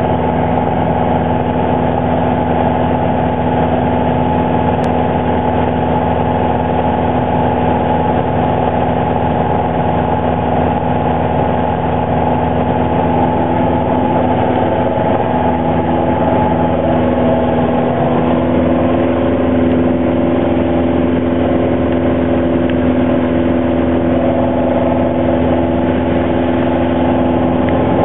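Piper PA-28 Archer's four-cylinder Lycoming engine and propeller droning steadily in flight, heard inside the cabin. The pitch shifts slightly about halfway through.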